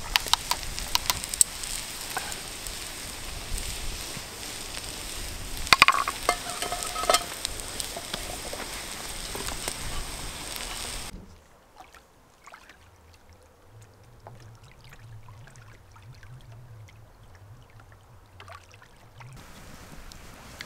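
Diced onion and potato frying and sizzling in a pan over an open wood fire, with sharp metal clinks of utensils on the pans, a cluster of them about six seconds in. About eleven seconds in this gives way to a much fainter wood fire crackling.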